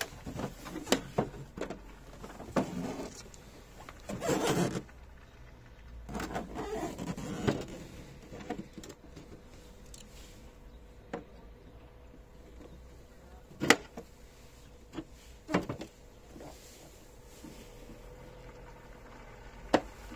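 Hard plastic Bosch L-Boxx tool case being handled and turned: scattered sharp clicks and knocks of plastic, with two longer stretches of scuffing and handling noise in the first half, and a sharp click near the end as the red latch is worked.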